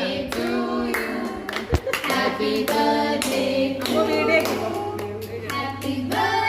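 A group of people singing together while clapping along, with sharp handclaps over the sung melody.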